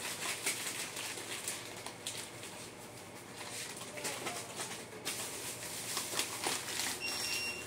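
Thin plastic bag and snack wrappers rustling and crinkling as packets are taken off a shelf and dropped into the bag. A brief high electronic beep sounds near the end.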